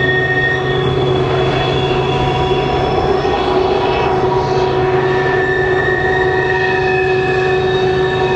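Freight train rolling through a tight curve: steel wheels squealing against the rails in several steady high tones over a low, steady rumble.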